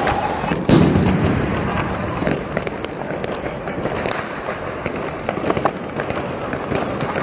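Fireworks going off all around. There is one loud bang about a second in, then dense, continuous crackling with many scattered sharp pops.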